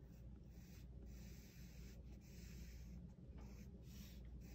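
Faint pencil strokes scratching on sketchbook paper, in a run of strokes about a second each with short breaks between, as the flamingo's leg and kneecap are drawn.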